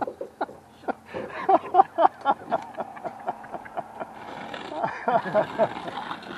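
A quick run of sharp knocks or taps, about three a second, with indistinct voices in between.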